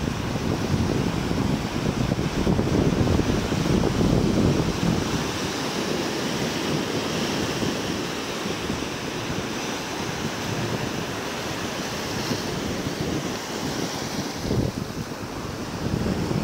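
Sea surf breaking and washing in foam up a sandy beach, with wind buffeting the microphone. The wash swells louder a couple of seconds in, then settles.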